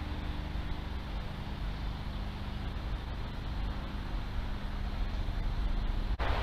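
Steady low rumbling background noise with a faint hum and no distinct events, as picked up by a trail camera's microphone in woodland. It drops out briefly near the end.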